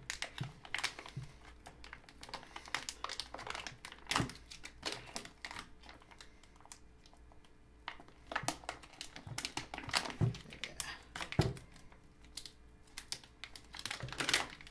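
Clear vacuum-sealed plastic bag around a filament spool crinkling and crackling in irregular bursts as hands twist and pull at it, trying to tear it open, with a quieter stretch midway.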